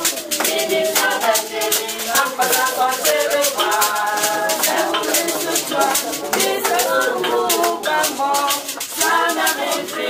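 Voices singing together to a steady beat kept on a shaker.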